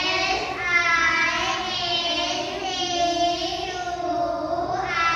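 A class of children reading aloud together in a slow, drawn-out, sing-song chant, many young voices in unison.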